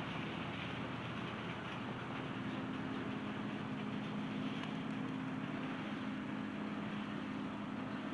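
A motor engine running steadily under a constant hiss. Its low hum steps up a little in pitch about two seconds in and then holds.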